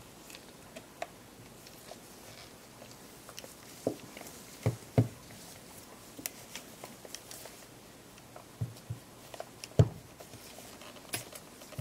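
Gloved hands handling a camera body while pressing its new top-LCD cover glass into place: scattered small clicks, taps and plastic rubbing, with a few louder knocks of the body being set or turned.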